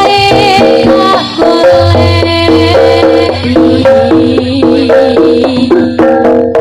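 Jaranan ensemble music played live: a stepping melody on pitched instruments over quick, busy hand-drum beats. A low sustained tone enters about two seconds in.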